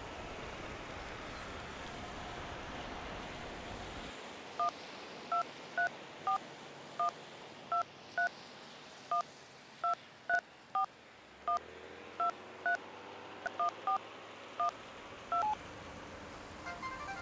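Keypad mobile phone's key tones as a text message is typed: about twenty short two-note beeps at an uneven typing pace, starting about four seconds in after a steady background hiss and stopping shortly before the end.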